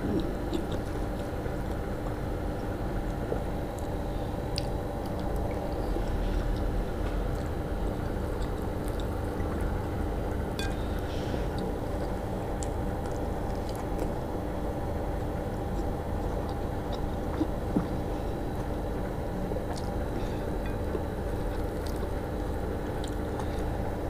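Eating soaked rice by hand: quiet chewing and the wet squelch of fingers mixing rice in rice water, with a few faint mouth clicks, over a steady background hum.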